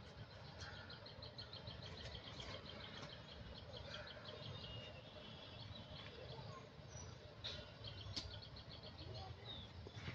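Faint outdoor ambience: a small bird chirping in rapid high trills, one long run early on and a shorter one near the end, over a low steady rumble. A couple of sharp clicks come about three-quarters of the way through.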